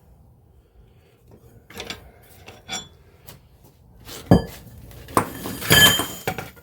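Metal hand tools and parts clinking and clanking, several with a short metallic ring: a few scattered clicks, a sharper clank about four seconds in, then a cluster of ringing clinks near the end.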